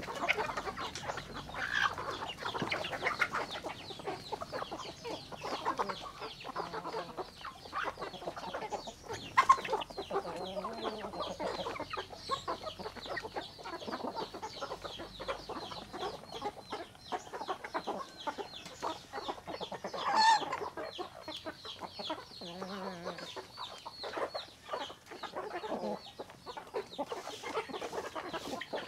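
A large flock of chickens clucking continuously while feeding, with many quick pecking taps at the feed and ground. One louder squawk stands out about twenty seconds in.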